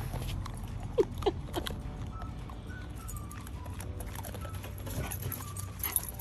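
A dog chewing duck jerky from a paper plate: scattered crunches and clicks of the teeth, with a few sharper ones about a second in.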